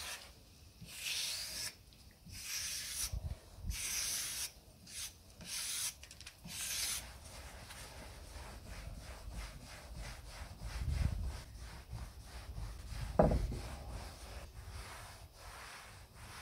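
A metal scraper drawn across a solid-oak bench top in about six loud scraping strokes, then a cloth rubbing beeswax into the wood in fainter, quicker strokes. A single sharp knock on the bench about thirteen seconds in is the loudest sound.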